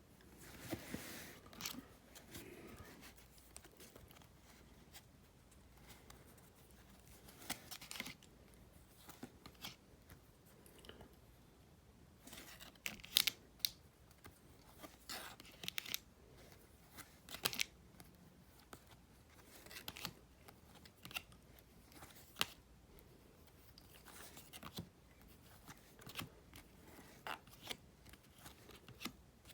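Trading cards and their paper and wrapper packaging being handled close up: irregular soft snaps, clicks and rustles as cards are flipped and slid, with a longer rustle near the start.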